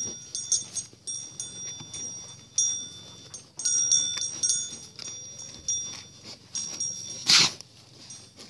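Sheep bells ringing irregularly as grazing sheep move their heads, mixed with close-up crisp clicks of grass being cropped. A short, loud rasping burst comes near the end.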